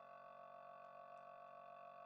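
Near silence, with a faint steady hum of several unchanging tones.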